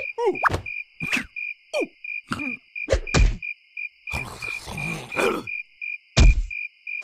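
Cartoon larva's short squeaky grunts and strains, each falling in pitch, as it struggles against a rubber band, with a thud about three seconds in, a scuffling rustle after four seconds and another thud near the end. Behind it, a cricket chirps in a steady pulse.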